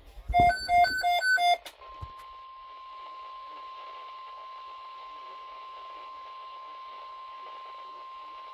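NOAA Weather Radio broadcast: a quick run of four loud electronic beeps, then, about two seconds in, the steady 1050 Hz warning alarm tone over radio hiss, the tone that announces a new alert.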